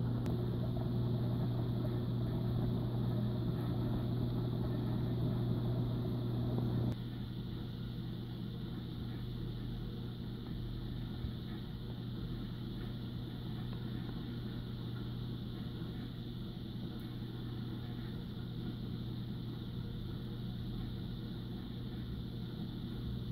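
Steady electric hum of reef-aquarium pumps over a faint hiss of circulating water. It steps down to a quieter level about seven seconds in.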